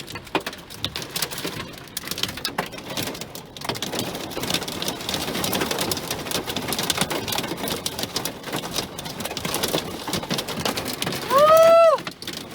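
Hail and rain pelting down in a thick, fast patter of many small hits, heavier from a few seconds in. Near the end comes a brief loud cry that rises and then falls in pitch.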